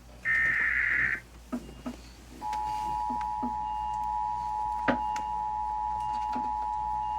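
The last burst of an Emergency Alert System SAME header, a warbling digital data tone about a second long. After a short pause with a few clicks, the EAS two-tone attention signal starts about two and a half seconds in and holds steady, announcing a new warning.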